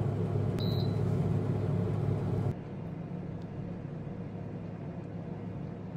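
OCOO food dehydrator running with a steady fan hum, and a short electronic beep from its control panel about a second in. About two and a half seconds in, the sound cuts to a quieter steady room hum.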